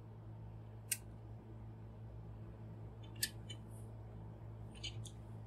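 A few faint, short plastic clicks as the parts of a Mastermind Creations Proditor Nimbus transforming robot figure are handled while a wing is fitted to its shoulder: one about a second in, one after three seconds, and a couple near the end. Under them is a steady low hum.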